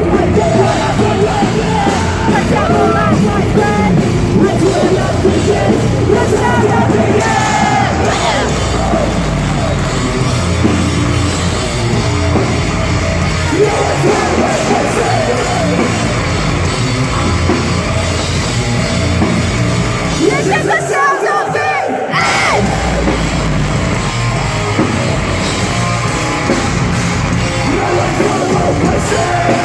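Metalcore band playing live with loud distorted guitars, drums and sung and screamed vocals. About 21 seconds in, the bass and drums drop out for a second or so, then the full band comes back in.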